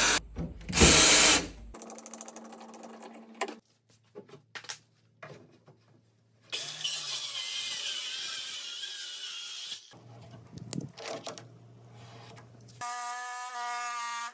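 Ryobi power tools at work on a wooden dresser. First a cordless drill runs in short bursts, driving out the drawer-runner screws. About seven seconds in, a circular saw cuts through the dresser top for about three seconds, and near the end a jigsaw motor runs with a steady whine.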